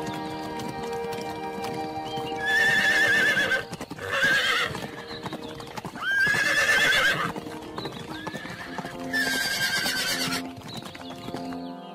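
Horses neighing in four high, wavering calls over background music.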